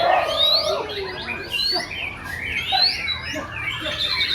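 Several white-rumped shamas (murai batu) singing at once, overlapping rising whistles and quick chirps.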